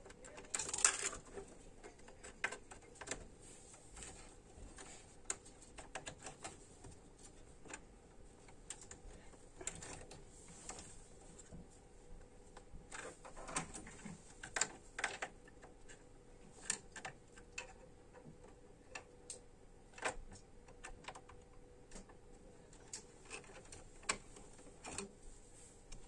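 Irregular small clicks and taps of hands handling memory modules and parts inside an open desktop PC case, with the loudest cluster of clicks about a second in.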